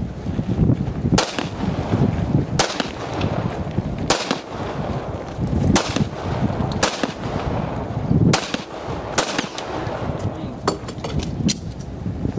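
Single pistol shots from a Springfield XD(M) 5.25 in .45 ACP: about six loud, sharp reports fired one at a time, roughly a second or more apart, with a few fainter cracks close together near the end.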